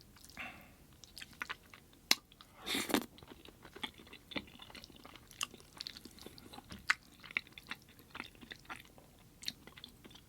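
Close-miked eating: chewing and biting with irregular wet clicks and smacks, and a louder brief noise about three seconds in.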